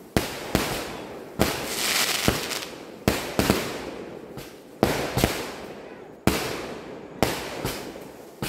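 Aerial fireworks bursting overhead: about a dozen sharp bangs at uneven intervals, some in quick pairs, with a crackling hiss that trails off after each burst.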